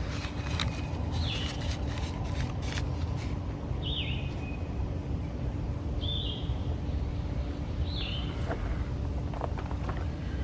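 A bird repeating a short, falling call about every two seconds over a steady low rumble, with a quick run of sharp crackling clicks in the first few seconds.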